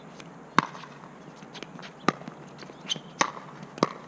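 Pickleball paddles striking the plastic ball in a rally: four sharp pops, each with a short hollow ring, coming quicker toward the end, with fainter taps between.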